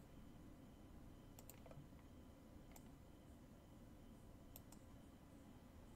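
Faint computer mouse clicks over near-silent room tone. There are a few single clicks and a couple of quick double clicks.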